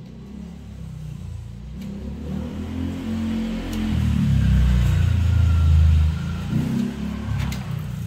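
A motor vehicle's engine rumbling past, swelling to its loudest about halfway through and then fading.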